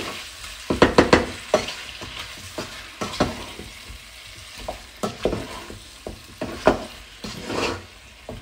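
Wooden spatula stirring chicken pieces in a speckled non-stick pot, giving irregular scrapes and knocks against the pan over a steady sizzle of chicken frying in oil. The loudest knocks come about a second in and again near the three-, five- and seven-second marks.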